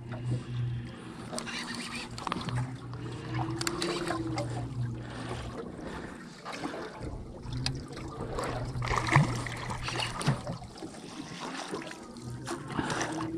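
Water sloshing and splashing around a small boat's hull, with scattered knocks and clicks and a low hum that comes and goes.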